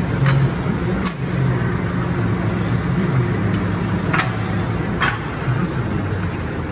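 Tractor diesel engine idling steadily, with a few short sharp knocks from the rear linkage being handled.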